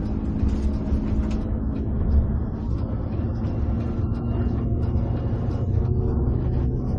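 Inside a coach bus cabin: the bus's engine hums steadily under a low road rumble, with scattered small ticks and clicks throughout.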